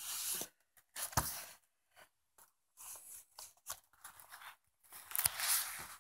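Shrink-wrapped vinyl LP jacket being handled, its plastic wrap crinkling and rustling in several short bursts, with a light knock about a second in and the loudest rustle near the end.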